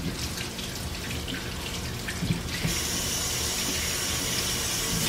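Kitchen faucet running water steadily into the sink from about two and a half seconds in, after a few light clicks and knocks.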